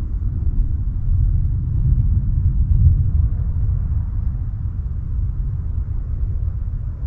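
Wind buffeting the microphone: a loud, uneven low rumble that swells and eases, with a few faint clicks.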